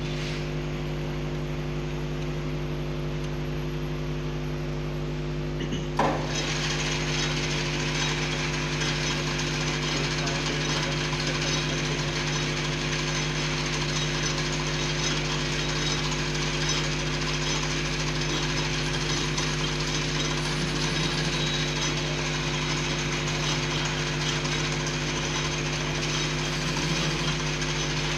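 Lathe running with a steady motor hum. About six seconds in there is a sharp knock as the cutting tool bites into the metal shaft. A harsh scraping hiss of metal being turned then carries on over the hum.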